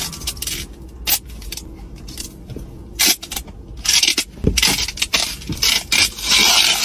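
Duct tape being pulled off the roll and torn in a car: a few clicks and rustles of handling, then two longer ripping stretches in the second half.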